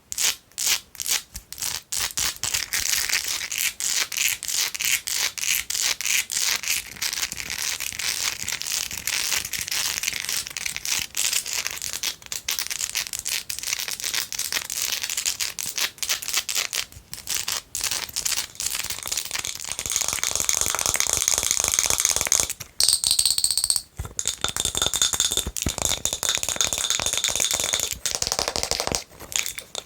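Long fingernails tapping and scratching fast on a candle, then, about twenty seconds in, on a glass jar with a wooden lid, where a faint glassy ring comes in under the tapping.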